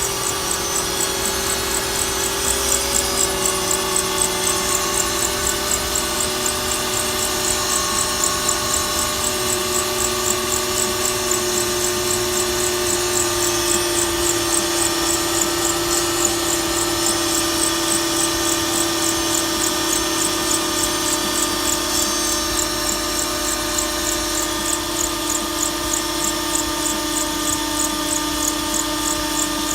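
Mercedes C230's M272 V6 engine running, with a steady whine that sinks slowly in pitch and a fast, even high chirping throughout. The owner had traced an abnormal noise from this engine to the belt tensioner.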